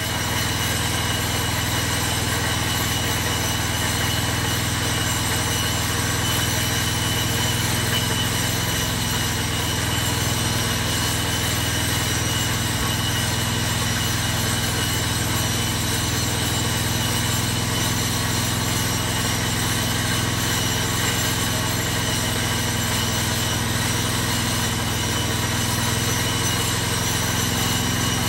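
An engine running steadily at idle, its drone unchanging throughout.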